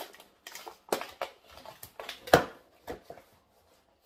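Cardboard box being handled and worked open: a run of short, sharp knocks and scrapes of cardboard, the loudest about two and a half seconds in.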